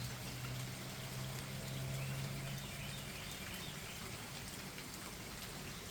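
Steady rain falling outdoors, an even patter of drops, with a low steady hum underneath that stops a little past halfway.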